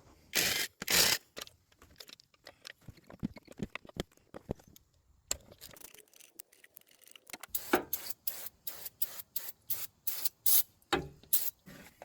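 Two short hissing sprays, followed by scattered clicks and taps that come thick and fast in the second half.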